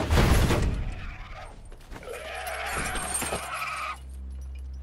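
A massed crash as a large formation of armoured soldiers strikes spear butts and shields in unison, loud at the very start and fading over a second or so. A low steady hum is left underneath.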